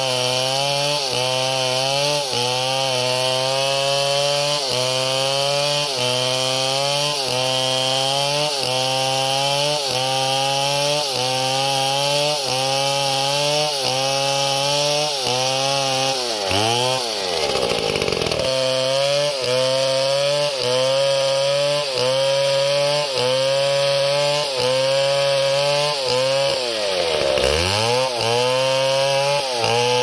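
Two-stroke chainsaw at full throttle ripping a log lengthwise, its engine pitch sagging and recovering about once a second as the chain bites under load. About halfway through and again near the end, the throttle is let off so the engine drops toward idle, then it revs back up into the cut.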